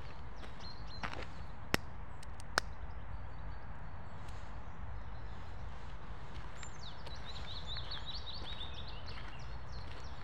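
Footsteps on a dirt forest path over a steady low rumble, with two sharp clicks about two seconds in. A small songbird sings a quick run of high notes from about seven seconds in to near the end.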